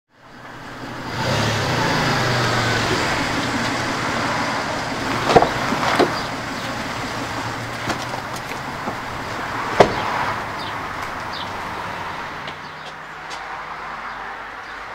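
A car running, heard from inside the cabin: a steady low engine hum and road noise, with a few sharp knocks in the middle. It grows quieter near the end.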